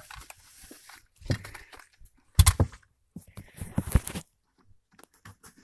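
Plastic interior trim piece of a 1999 Mercedes E320 wagon being worked loose and pulled out by hand: a scatter of clicks and knocks with short scraping rustles, the loudest about two and a half seconds in and again around four seconds.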